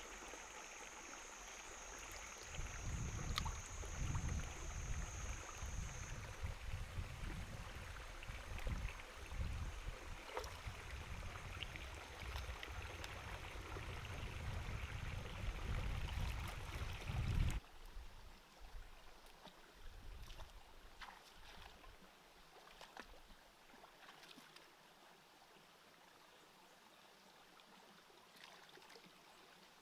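Shallow rocky stream trickling, with water sloshing, small knocks and an uneven low rumble as hands search the streambed for snails. About two-thirds of the way through, the rumble stops abruptly, leaving a quieter trickle with a few faint clicks.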